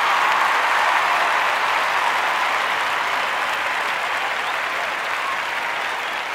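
Crowd applauding, a dense even clapping that slowly fades.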